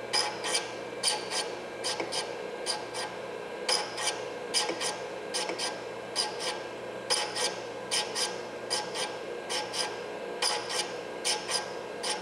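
Valve refacing machine running with a steady motor hum while a new Model T valve's stem tip is ground to length on the grinding stone. The stem is swept back and forth across the stone in quick passes, giving short rasping contacts a few times a second.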